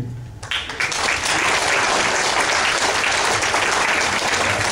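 An audience applauding, starting about half a second in and keeping up steadily, at the close of a speech.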